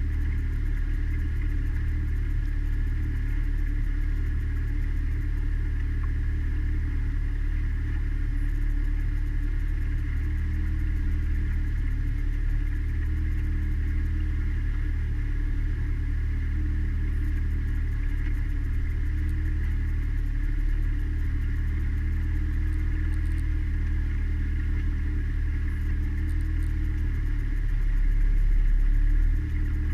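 Mariner outboard motor on a small cruiser running steadily at cruising speed: an even, low engine drone with a higher hum over it. It grows briefly louder in the low range near the end.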